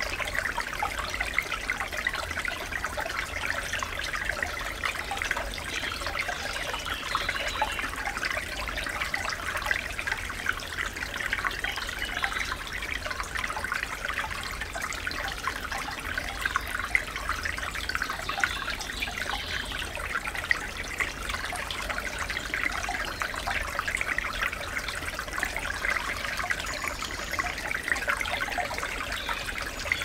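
Light rain falling on forest leaves: a steady patter of many small drops.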